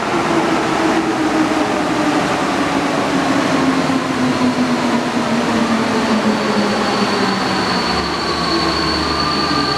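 Alstom NS-93 rubber-tyred metro train running, its traction-motor whine gliding steadily down in pitch as the train slows, over a constant running rumble. A high steady whine comes in about halfway.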